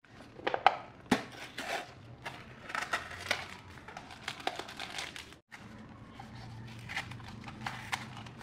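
Plastic seasoning sachets and the peeled-back lid of a Pop Mie instant-noodle cup crinkling and rustling as they are handled and pulled out of the cup: a run of short, uneven crackles, broken off briefly about five seconds in.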